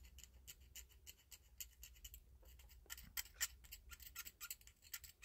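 A fairly dull X-Acto blade scraping the plating or blackening off the back of a small metal HO-scale model train wheel and its axle: faint, quick scratchy strokes, several a second.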